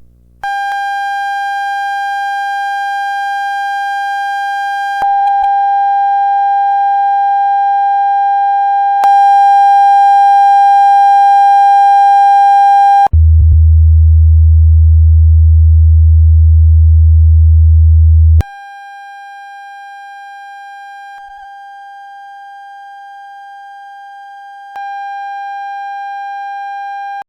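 Test tones for a 5.1 surround speaker check: a steady buzzy tone near 800 Hz that steps louder about five and nine seconds in, then a deep bass tone for about five seconds, the loudest part, as for the subwoofer (LFE) channel, then the mid tone returns quieter, stepping in level twice.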